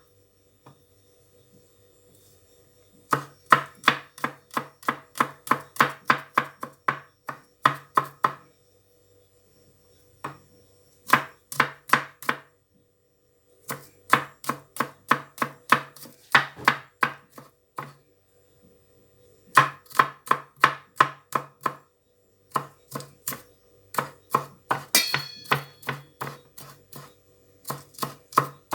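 Kitchen knife chopping garlic cloves on a cutting board in quick runs of even strokes, about three a second, with pauses of a second or two between runs.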